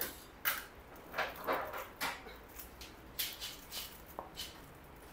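Hand tools clicking and rattling irregularly against metal as a mechanic works at a scooter's engine during an oil change.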